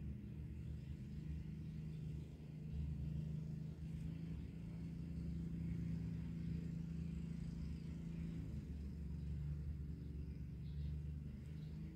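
A steady low background hum, with no clear strikes or events on top of it.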